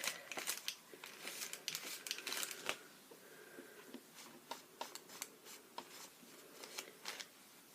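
Soft rustling and rubbing, with scattered light clicks and taps, as wet acrylic paint is wiped off the piece before it dries. The rubbing is strongest in the first few seconds, then gives way to sparse small clicks.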